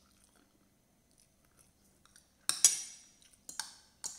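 Metal fork and spoon clinking and scraping against a ceramic plate while eating: a few sharp clinks that start about halfway through, each ringing briefly.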